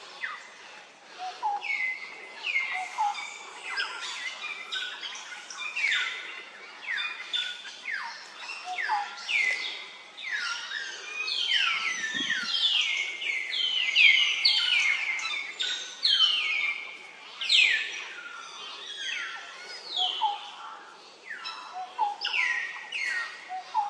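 Many high chirping calls, each sliding quickly down in pitch, overlapping one another almost without a break. A single low thump comes about halfway through.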